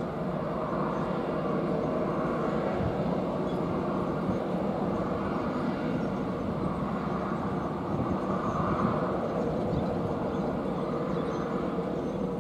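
Jet airliners taxiing at low power: a steady engine rumble with a constant hum, without any rise in pitch.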